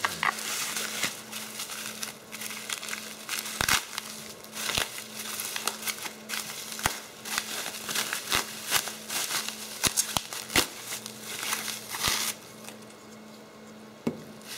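Plastic bubble wrap crinkling and crackling as it is handled and pulled off a long metal rail, with scattered sharp clicks. The crinkling eases off for a moment shortly before the end.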